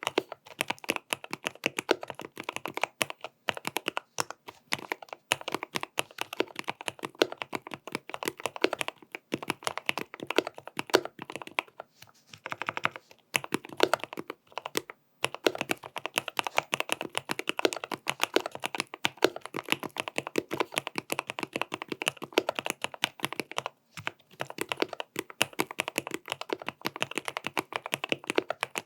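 Continuous typing on a GMMK Pro custom keyboard with stock Gateron North Pole linear switches, tape mod and PBT Cherry-profile keycaps: a dense run of keystroke clacks with a few brief pauses.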